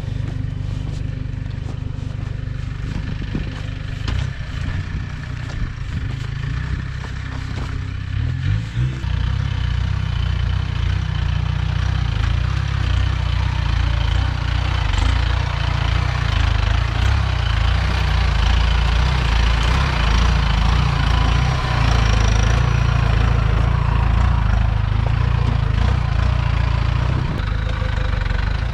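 An off-road 4x4's engine running on a rough track. It picks up with a brief rev about eight or nine seconds in, then pulls louder and harder under load.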